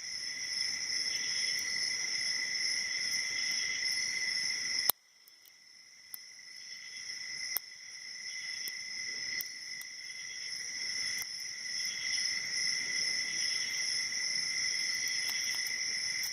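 Small sharp clicks of a hook pick and tension wrench working the pin tumblers of a six-pin Mako SFIC padlock core, the clearest about 5 seconds in and again a couple of seconds later. They sit under a steady high-pitched background drone that cuts out at the first click and slowly swells back.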